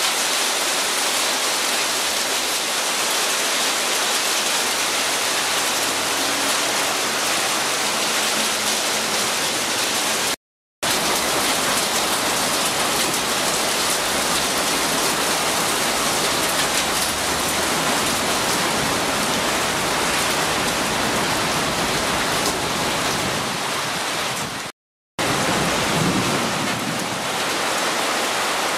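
Heavy rain pouring onto pavement, puddles and a tiled roof: a steady, dense hiss that cuts out briefly twice.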